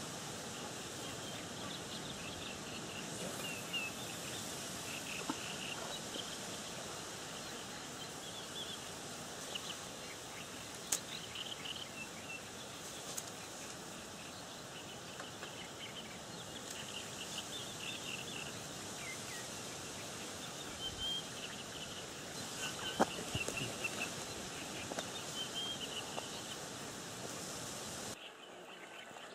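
Small birds chirping and twittering on and off over a steady outdoor background hiss, with a couple of sharp clicks. The background drops away abruptly near the end.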